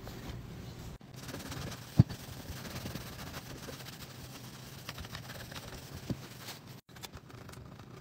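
Faint scrubbing and scraping on a dirty laptop's plastic palm rest, with a sharp knock about two seconds in, over a low steady hum. The sound drops out briefly twice at edit cuts.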